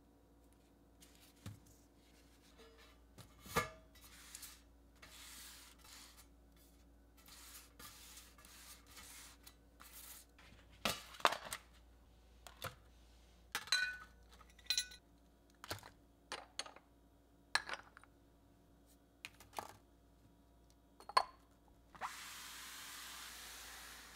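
Scattered clinks, taps and knocks of a stainless steel pan, glass bottles and a glass jar being set down and shifted in a woven basket on a stone countertop, with light rustling. A steady hiss runs for about two seconds near the end.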